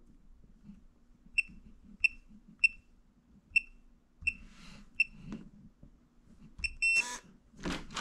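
Electronic keypad of a fingerprint/passcode smart door lock beeping once per key press as a six-digit passcode is entered, about one beep every half second to second. Near the end come two quick beeps and a slightly longer tone, then a short burst of noise.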